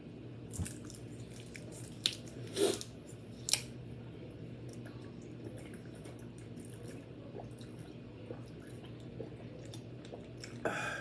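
A person chewing food with wet, squishing mouth sounds, with a few sharp louder smacks in the first few seconds, over a steady low background hum.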